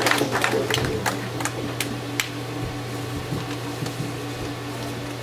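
Congregation applause dying away to a few scattered claps over the first two seconds, leaving a steady low room hum.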